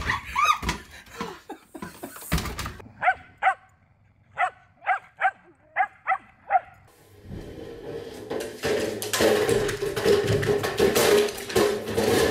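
Dogs barking: a run of about nine short, sharp, high-pitched barks, starting about three seconds in. For the last five seconds or so a louder, rough, steady noise takes over.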